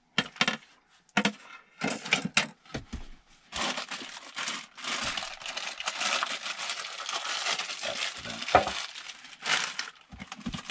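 Plastic packaging crinkling and rustling as small parts are unwrapped by hand, steady for about six seconds from a third of the way in, with a few light knocks of parts and cardboard before it and a single clunk near the end.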